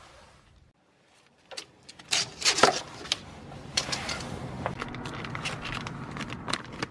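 Clear plastic bag crinkling and clicking as it is handled, starting about two seconds in after a brief near-silent gap.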